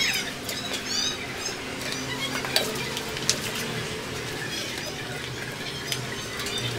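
Soil mix being handled and poured from a plastic basin into a plant pot, with scattered light clicks. A few short high chirps come in the first second, over a steady low hum.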